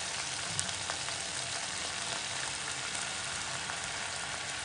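Chopped garlic and Schezwan chutney sizzling steadily in hot oil in a kadhai, with a few faint crackles.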